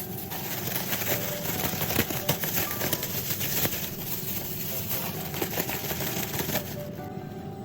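Chicken-breast karaage pieces deep-frying in hot oil: a dense, continuous sizzle full of small crackles and pops, easing near the end. Faint background music runs underneath.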